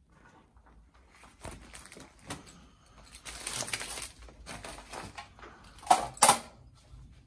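Paper notices rustling and crinkling as they are handled, with two loud, sharp crinkles in quick succession about six seconds in.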